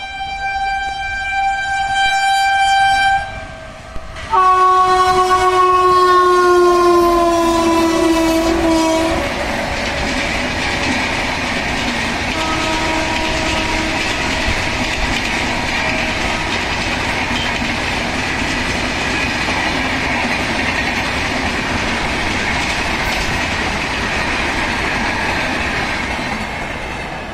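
A passenger train's locomotive horn gives a long blast that stops about three seconds in, then a second, louder blast that falls in pitch as the locomotive runs past at speed without stopping. The steady rolling rush of the coaches passing follows, with a fainter horn note midway, and fades near the end.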